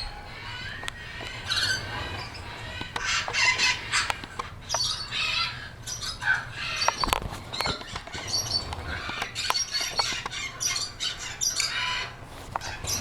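Birds chirping and squawking in many short calls, trills and clicks.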